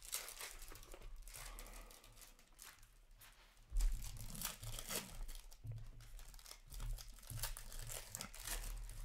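Upper Deck Allure hockey card packs being torn open, their wrappers crinkling in a run of sharp crackles, loudest about four seconds in.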